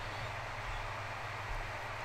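Room tone: a steady low hum with a faint even hiss, no distinct event.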